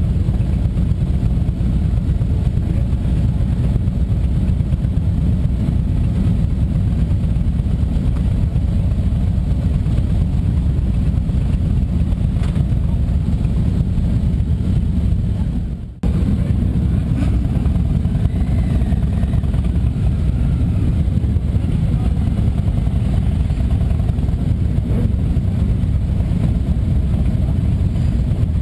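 Motorcycle riding: a steady, loud low rumble of engine and road noise, with a brief drop about halfway through.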